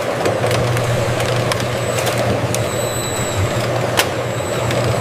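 Cartoon tractor engine sound effect running steadily, a low even hum with scattered light clicks.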